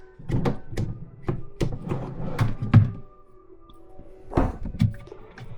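A quick series of wooden knocks and thunks on flat-pack furniture panels, about nine in the first three seconds, then two more near the end.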